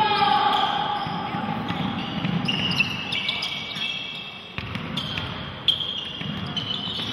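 Basketball game on a hardwood gym floor: sneakers squeak in short high chirps as the players run and stop, a ball bounces with sharp knocks a couple of times, and a player's voice calls out at the start.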